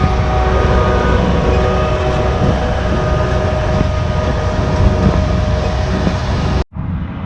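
Heavy diesel farm machinery running steadily: a deep drone with several steady whining tones over it. Near the end it cuts off abruptly and a quieter, similar machine sound follows.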